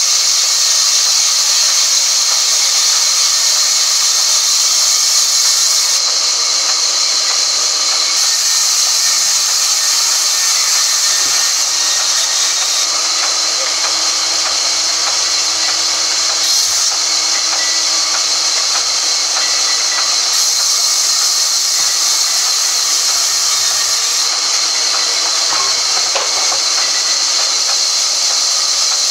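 Sawmill band saw running and cutting lengthwise through a log, a loud, steady, high-pitched noise of the blade in the wood.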